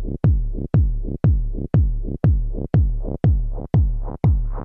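Electronic dance music with a heavy kick drum on every beat, about two beats a second, each beat dropping in pitch. Brighter sounds start to build on top near the end.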